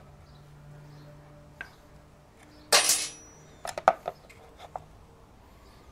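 A new air filter element and rubber breather hose handled by hand against the motorcycle's air cleaner backplate. A short loud scrape comes just under halfway through, then a quick run of sharp clicks and light clinks.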